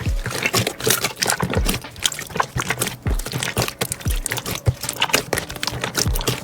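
Slime being squeezed and stretched by hand, making rapid, irregular wet clicks, pops and squelches.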